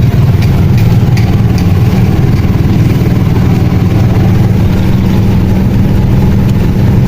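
Steady low rumble of a vehicle's engine and road noise heard while riding in the vehicle, with a few faint clicks in the first two seconds.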